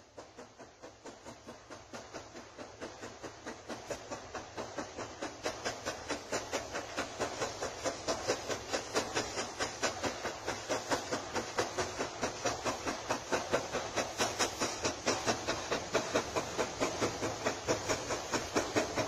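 Steam locomotive coming closer, its exhaust chuffing in rapid, even beats that grow steadily louder.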